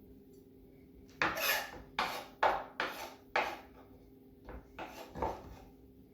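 A utensil scraping against a mixing bowl of cream cheese filling: about five loud scrapes in quick succession, then three softer ones.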